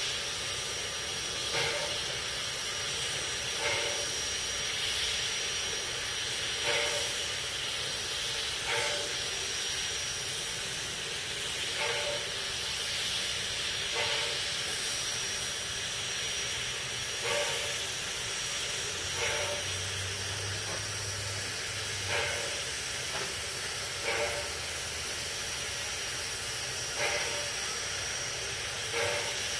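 Robert Dollar Co. No. 3 steam locomotive standing with steam hissing steadily from under it, with a thin high whistle in the hiss and a short beat about every two seconds.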